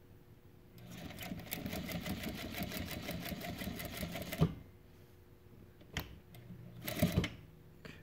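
Juki DDL-8700H industrial single-needle lockstitch sewing machine running for about three and a half seconds with a rapid, even stitch rhythm as it sews through a thick dog collar of eight or more layers of heavy webbing. It stops with a sharp click, followed by a couple of short knocks about six and seven seconds in.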